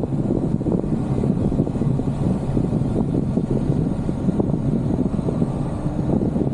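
Steady low rumble of a vehicle driving along a rutted dirt track, picked up by a camera mounted outside on its bonnet, with wind buffeting the microphone.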